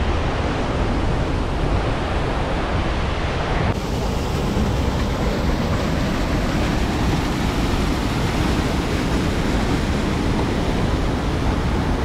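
Panimur waterfall on the Kopili River: a loud, steady rush of water pouring over the rock ledges into the rapids, changing slightly about four seconds in.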